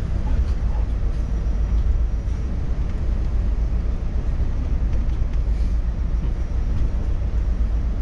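Steady low rumble of a moving tour bus, its engine and road noise heard from inside the cabin.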